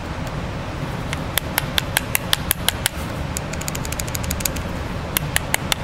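Quick runs of light metallic clicks, several a second, as a pick knocks the rollers of a CAV rotary diesel injection pump back and forth: the rollers have gone sticky from old fuel sitting in the pump. A shop heater hums steadily underneath.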